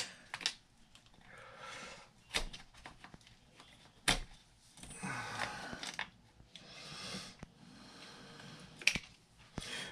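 Small clicks and knocks of metal and plastic parts and a hand tool as the bent axle of a Tekno MT-410 RC truck is worked out of its hub, with a few soft breaths between.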